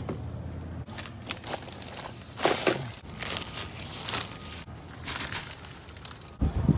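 Plastic shopping bags rustling and crinkling as they are handled, among scattered clicks and knocks, with a heavy thump near the end.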